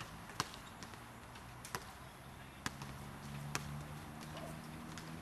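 A basketball bouncing on an outdoor hard court: four sharp, separate hits about a second apart. A low steady hum comes in about three seconds in.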